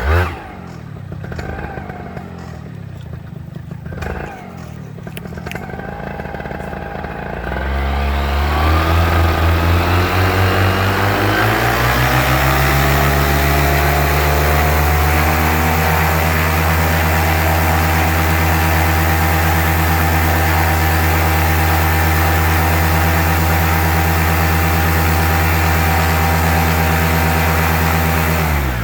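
Paramotor engine and propeller: the engine catches abruptly and runs unevenly at low speed for about seven seconds, then is throttled up, its pitch rising over several seconds to a steady full-power run that holds until it is cut off at the end. This is a full-power test run of a freshly repaired propeller.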